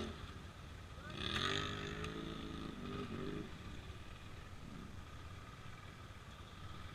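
An ATV engine revs up about a second in, holds briefly, revs once more for a moment about three seconds in, then drops back to a low steady running sound.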